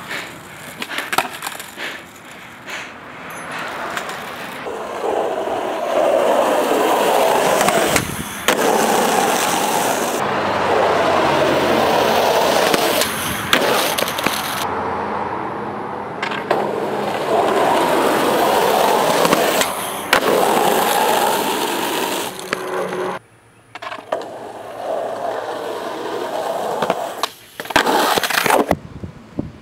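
Skateboard wheels rolling on asphalt, broken by sharp clacks of the board as tricks are popped and landed. The rolling sound stops and starts abruptly several times as one short clip follows another.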